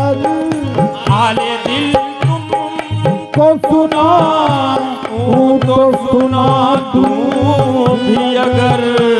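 Qawwali music: a steady tabla beat under a melodic line, with some held notes and bending sung phrases between the lyric lines.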